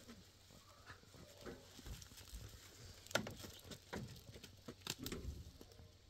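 Stones and dry debris being shifted by hand and underfoot on a rubble slope: soft rustling with scattered sharp clicks and knocks of stone on stone.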